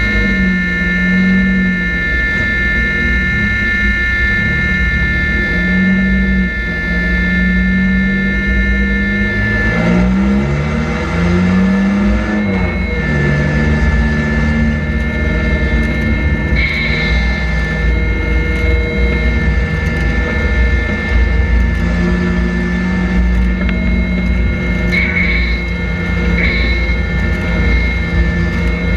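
Engine of a Chevrolet Cavalier street stock race car at racing speed, heard from inside the cockpit. Its pitch drops and climbs back several times as the throttle is lifted for the turns and reapplied out of them, with a steady high whine over it.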